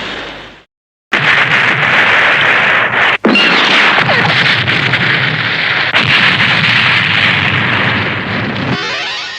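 Tokusatsu sound effects: the tail of one fades out, then after a short silence a long, loud, explosion-like rushing noise starts suddenly, breaks off for an instant about three seconds in, and fades away near the end.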